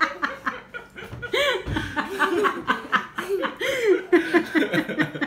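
Laughter: a long run of short, quick chuckles.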